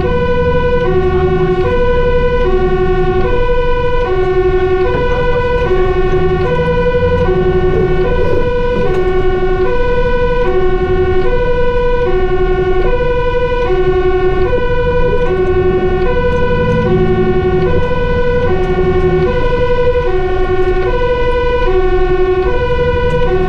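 Fire engine's two-tone siren alternating steadily between a high and a low note, each held for under a second, heard from inside the cab over the low rumble of the truck's engine.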